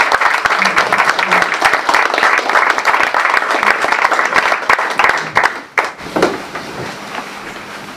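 Applause from a small gathering seated round a table: many hands clapping at once, thinning out and dying away about six seconds in.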